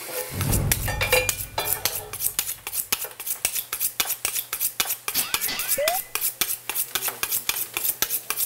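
Kitchen knife chopping rapidly and evenly on a cutting board, a long unbroken run of quick chops. A low whoosh opens it, and a brief rising whistle-like tone sounds about halfway through.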